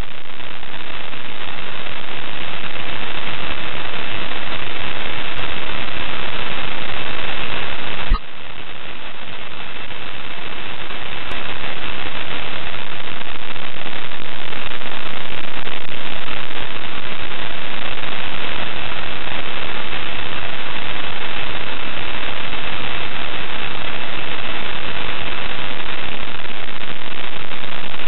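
Loud, steady static hiss on the ISS live-stream audio feed, with a faint, steady high tone beneath it. The hiss drops out for an instant about eight seconds in.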